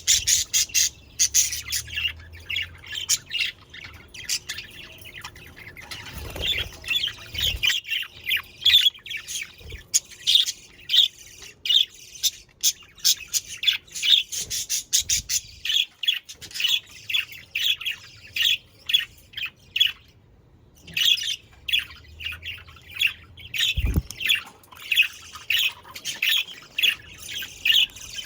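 A flock of budgerigars chattering and squawking in quick, overlapping calls, with a brief lull about twenty seconds in. Two low thumps come through, one early and one near the end.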